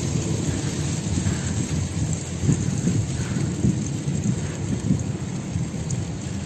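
Wind buffeting the microphone of a moving bicycle, a fluttering low rumble, over a steady hiss of tyres rolling through slushy, packed snow.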